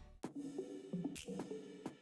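Quiet background music: held low notes with a few short drum or cymbal hits.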